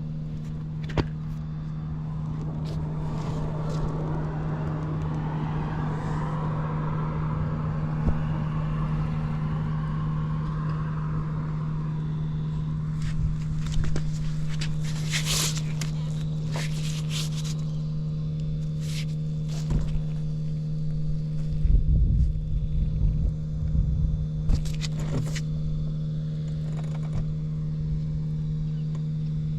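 Honda Cabina 50 scooter's small two-stroke engine idling steadily soon after a cold start, one even hum throughout. Scattered clicks, bursts of hiss and louder low knocks around the middle and later part come from handling around the scooter.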